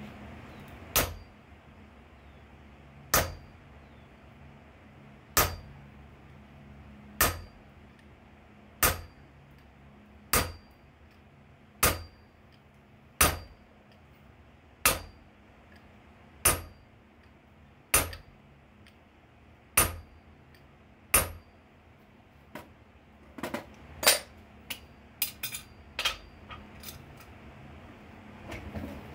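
Hammer blows on a hand punch driven into hot steel on an anvil, punching a hole through the forged bottle opener. About thirteen evenly spaced strikes come one every second and a half or so, each with a short metallic ring. Near the end comes a run of lighter, quicker taps.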